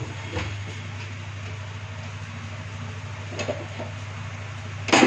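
A few light clinks of steel kitchen utensils and pots being handled, ending in one sharper, louder clatter, over a steady low hum.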